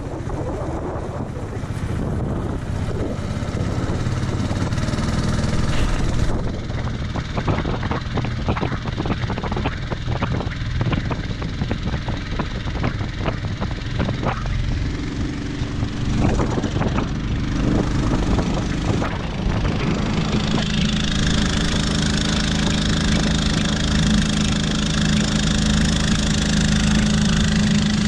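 Mudskipper kit's 7 hp 210cc small engine running steadily under load, driving a surface-drive longtail prop on a jon boat. Its pitch and loudness shift a few times.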